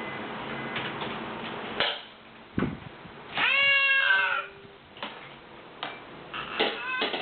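Short, sharp hiccups several times, with one drawn-out high cry, falling a little in pitch, about three and a half seconds in.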